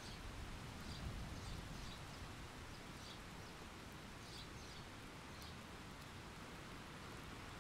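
Quiet rain ambience: a soft, even hiss of rain with a low rumble underneath, and a bird chirping faintly in short high notes during the first five seconds or so.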